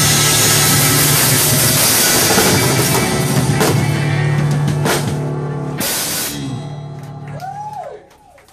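Live rock cover band playing the closing bars of a song: drum kit crashes and cymbals over held bass and guitar notes, with accented hits around four and six seconds in. It rings out and fades near the end.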